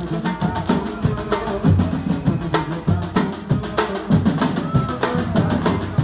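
Music carried by drums and percussion, with a steady beat.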